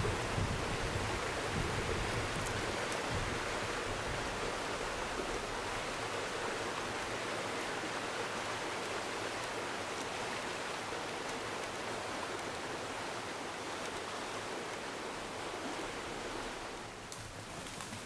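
A steady rushing hiss with no clear pitch, with a few light clicks near the end.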